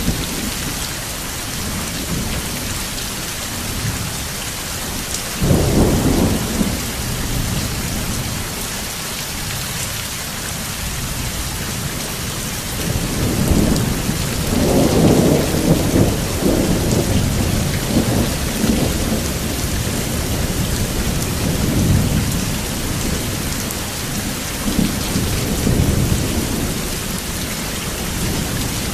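Steady rain falling, with thunder over it. A sudden rumble comes about five seconds in, a longer rolling rumble around the middle, and lighter rumbles later on.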